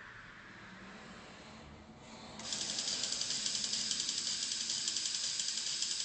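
Faint hiss, then about two and a half seconds in a loud, high-pitched buzz with a fast, even pulse starts suddenly and holds steady.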